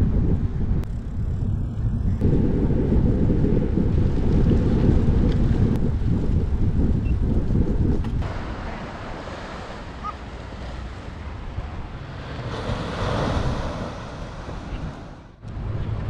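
Wind buffeting the microphone of a bike-mounted action camera while cycling, a heavy low rumble for the first half. About halfway it eases and the hiss of surf breaking on the shore comes through, swelling briefly, then cuts off just before the end.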